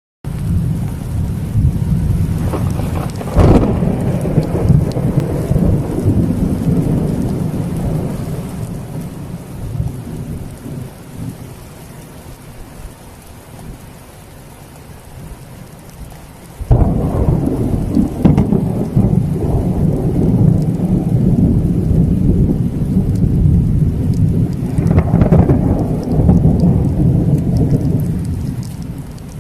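Thunder with rain falling. A sharp crack a few seconds in rolls off into a long, fading rumble; about halfway through a sudden loud clap breaks in and rolls on for several seconds, swelling again near the end.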